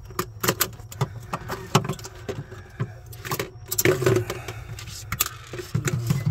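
Irregular metallic clicks, knocks and rattles as a cut-out finned evaporator coil is pulled and worked loose by hand from a refrigerator cabinet, over a steady low hum.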